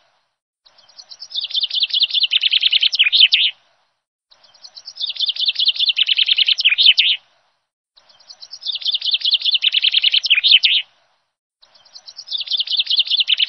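Birdsong: one chirping, trilling phrase, about three seconds long, that starts softly and builds, repeated four times in identical form with complete silence between repeats.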